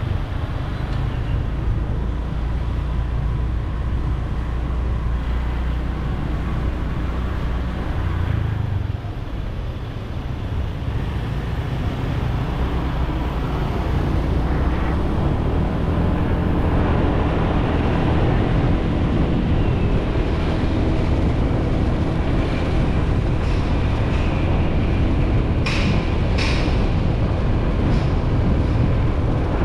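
Motor scooter riding along city streets: engine running steadily under wind and road noise, dipping briefly about a third of the way in. Two sharp clicks or knocks come close together near the end.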